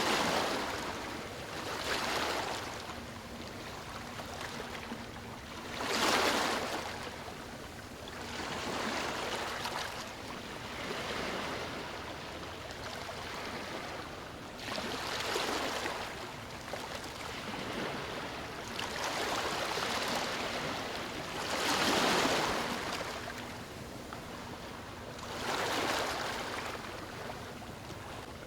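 Sea waves breaking and washing up a beach, the surf swelling and falling away every few seconds, with the largest breakers about six seconds in and about two-thirds of the way through.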